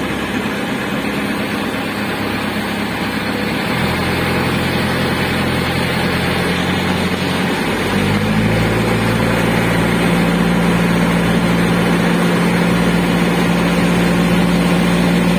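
Engine of a bamboo outrigger boat running steadily under way, a loud low drone with water and wind noise over it; its pitch shifts abruptly twice, about four and eight seconds in.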